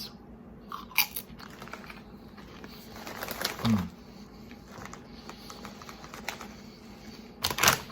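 Someone chewing thin, crisp potato chips, with scattered sharp crunches, the strongest about a second in and again near the end. A short falling hum of appreciation comes about three and a half seconds in.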